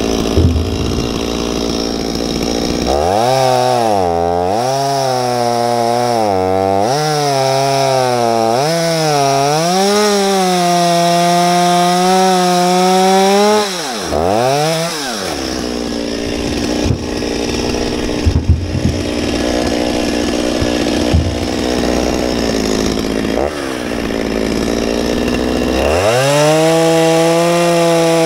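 Stihl 021 two-stroke chainsaw idling, then revved up about three seconds in and cutting through a log, its pitch dipping and recovering under load. It drops back to idle about halfway through, with a few knocks while it idles, and revs up again near the end.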